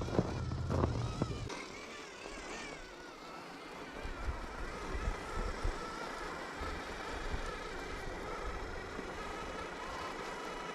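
RC rock crawler driving: the electric motor and gearbox whine, the pitch wavering up and down with the throttle, over low rumbling and a few knocks in the first second or two.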